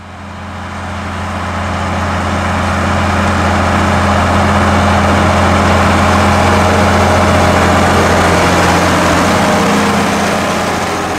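Large diesel farm tractor engine running steadily while pulling a tillage implement through the field, with a strong, steady low drone. It fades in over the first couple of seconds and fades out near the end.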